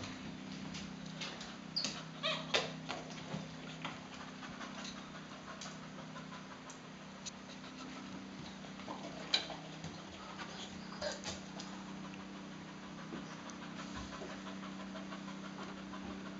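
Boxer dog panting, with scattered light clicks and knocks, a cluster of them about two seconds in and more later on.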